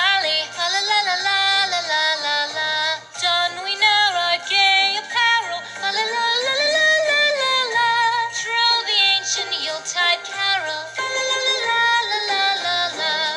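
Music: a song with a wavering sung melody over a steady, stepping bass line.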